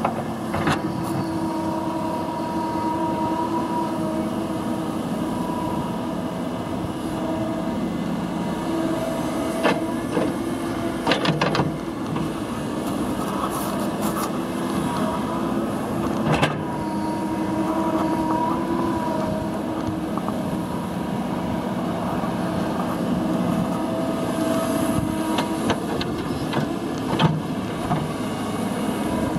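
Kobelco SK235SR hydraulic excavator running steadily as it works, engine and hydraulics with a whine that comes and goes as the boom and bucket move. A few sharp knocks stand out, near the middle and again near the end.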